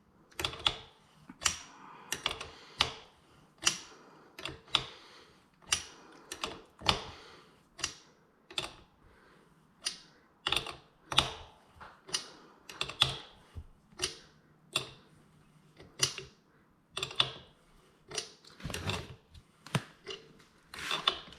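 A run of sharp clicks and knocks at uneven spacing, about one to two a second, from hand work on a bike being assembled.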